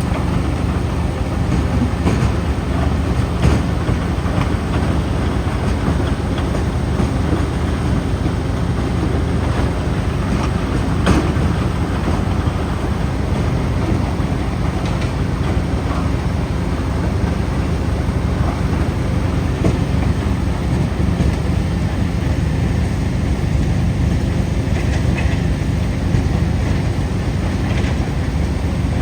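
Mobile track-mounted crusher running steadily as it crushes asphalt, a heavy continuous rumble with scattered knocks of material going through, a sharper knock about eleven seconds in.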